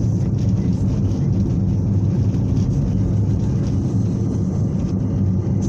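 Cabin noise of a 2002 Fiat Uno Mille Fire under way: its 1.0-litre four-cylinder engine running at a steady speed with road and tyre noise, a constant low hum.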